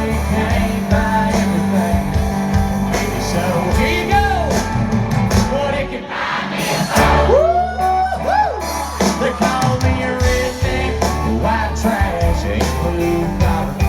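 Live country-rock band playing loud, with drums, bass and guitar, and singing over it; sliding, bending melody lines come in about halfway through.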